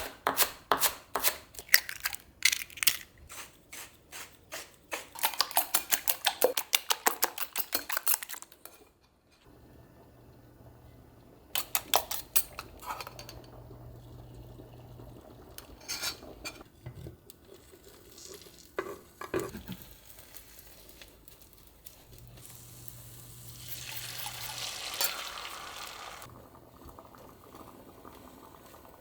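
Kitchen sounds of cooking: a utensil clatters rapidly against a bowl or board for the first several seconds, then comes a quieter stretch of scattered clinks over a low hum, with a swelling hiss about two thirds of the way through.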